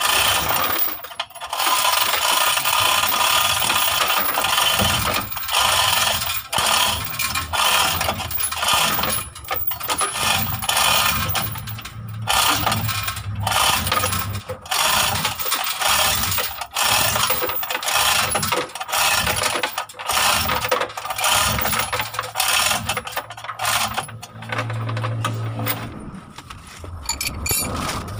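Dense metallic clicking and rattling in uneven spurts, from hand work on the engine and its hoist. A low hum joins near the end.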